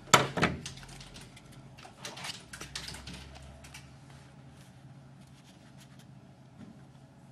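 Card and paper being handled on a cutting mat: a sharp knock just after the start, then light rustles and taps as a layered paper topper is pressed onto a card front, fading to quieter handling.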